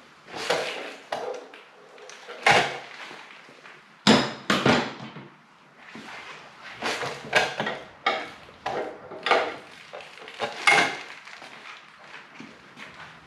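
Hand tools and metal motorcycle parts clanking and knocking against each other in irregular strikes, some with a short metallic ring. The work is loosening the rear axle to push the wheel forward and slacken the drive chain.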